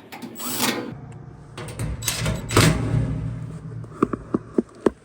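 Handling noises: rustling and scraping, then a quick series of four or five sharp clicks or taps near the end.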